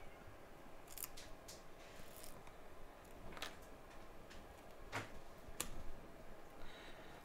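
Faint scraping and clicking of a thin metal opening tool worked along the edge of an iPhone X, cutting through the screen's adhesive seal as it is pried open. Short scrapes and clicks come at irregular moments, a little louder around five seconds in.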